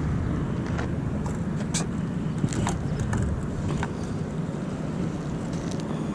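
A motor vehicle passing, a steady low rumble that eases off after about five seconds, with scattered small clicks and taps.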